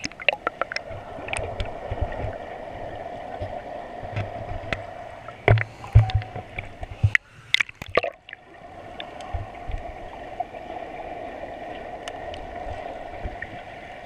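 Underwater sound through a GoPro's waterproof housing in a waterfall's plunge pool: a steady, muffled rush of falling water with a low rumble, scattered clicks and knocks on the housing, and a cluster of louder thumps around the middle, after which the rush drops out briefly.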